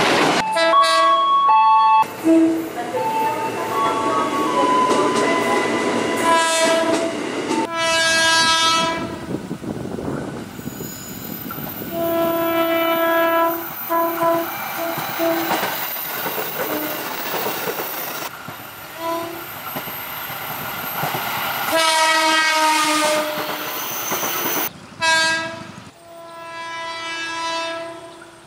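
KRL Commuter Line electric trains sounding their horns: a string of horn blasts, some long and some short toots, over the noise of the trains running on the rails, with abrupt jumps between separate recordings.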